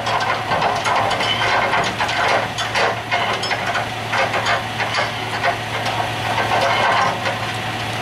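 Irregular knocks and clanks of steel parts as a tow truck's underlift fork is worked into place under a coach's front axle, over the steady hum of an idling engine.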